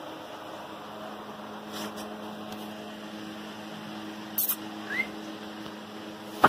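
Golden retriever puppy scrambling up a wire-mesh cage: a couple of sharp rattling knocks about four seconds in and a louder one at the very end, with one short rising squeak about five seconds in, over a steady low hum.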